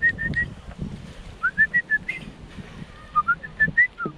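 Short, clear whistled notes in three little phrases, each note sliding quickly up and then holding, like a simple whistled tune, over a low rumble.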